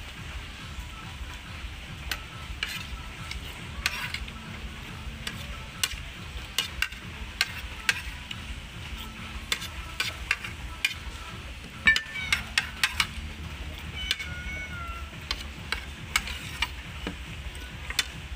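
Metal spoon clinking and scraping against a ceramic plate in scattered sharp ticks, thickest about two-thirds of the way through, over a steady low hum.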